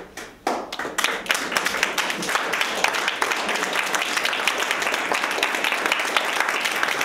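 Theatre audience applauding: a few claps at first, swelling into dense, steady applause within the first second.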